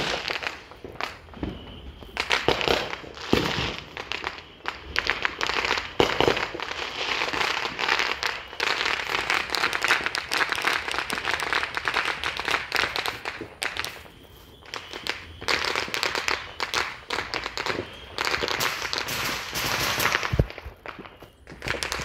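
Firecrackers going off in fast, dense crackling runs several seconds long, with short gaps and a few single louder pops between.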